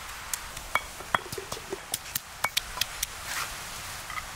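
Garlic cloves being pounded with a stone pestle in a stone mortar: sharp, irregular knocks of stone on stone, about three a second. Near the end comes a brief scrape as the crushed garlic is gathered off the stone.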